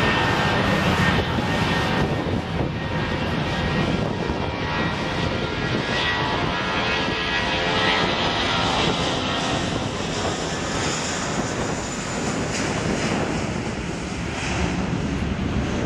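Boeing 777-300ER's GE90-115B turbofan engines running at taxi power: a steady jet rumble with a high whine, the whine strongest in the first few seconds.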